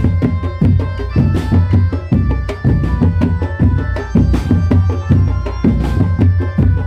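Drum band music: fast, dense drumming over a heavy low beat, with a held melody line and a few crashes, one about a second and a half in and two more later.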